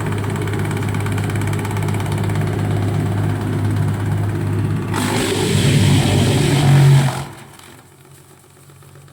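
Disc wood chipper running with a steady low hum; about five seconds in, a loud harsh grinding rises for about two seconds as wood is fed through and chipped, then cuts off suddenly, leaving a much quieter hum.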